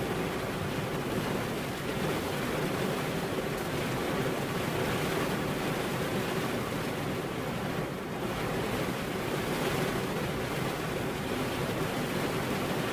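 Steady rain, an even rushing hiss with no distinct drops, breaks or thunderclaps.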